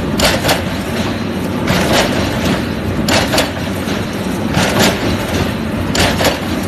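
Hexagonal wire-netting weaving machine running: a steady mechanical rumble with short, sharp metallic clacks that come in pairs, about every one and a half seconds.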